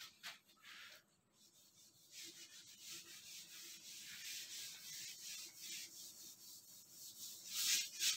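Handheld whiteboard duster rubbing back and forth across a whiteboard, wiping marker writing off in repeated dry strokes. After a couple of brief touches it settles into steady rubbing about two seconds in, loudest near the end.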